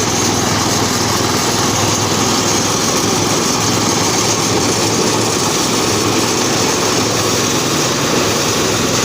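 Harvest machinery's small engine running steadily at a constant speed, loud and unbroken.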